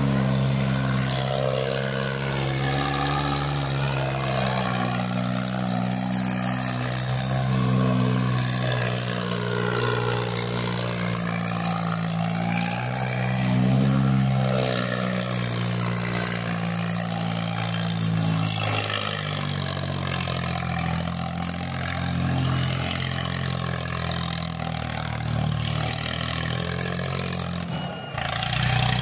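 Diesel tractor engine running hard and revving, its pitch rising and falling as the tractor spins on its rear wheels with the front lifted. The engine note shifts and settles about two-thirds of the way through.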